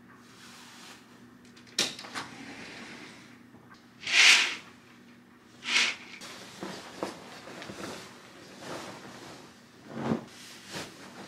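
Bedding rustling as a duvet and pillows are pulled off a bed, and curtains drawn open along their rod, with a sharp click about two seconds in and two louder swishes around four and six seconds in.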